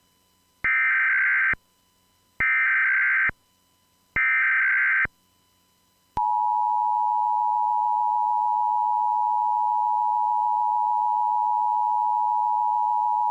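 Emergency Alert System broadcast tones: three bursts of SAME digital header data, each just under a second with short gaps, encoding a Required Monthly Test. About six seconds in, the EAS two-tone attention signal (853 and 960 Hz sounded together) starts and holds steady.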